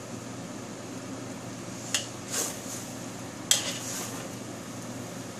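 A spatula scraping and knocking against a wok as noodles and leafy greens are tossed in stir-frying, with two sharp knocks about two and three and a half seconds in, over a steady low hum.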